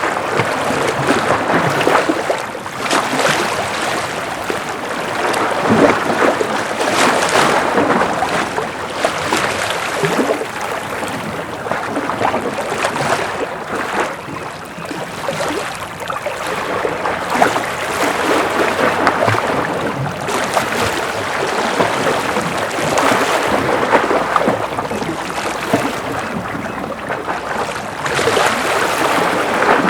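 Gentle ocean waves washing in, a steady rushing that swells and eases every few seconds.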